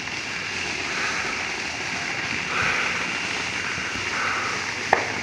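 A steady outdoor hiss with a thin, constant high whine, a few soft swells of distant noise, and one sharp firework bang near the end.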